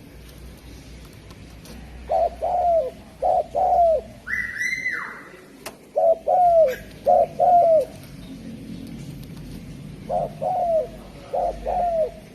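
Spotted dove (derkuku) cooing: short, low coo notes in pairs and a run of four, repeated several times with pauses between. A higher, falling note cuts in once about four seconds in.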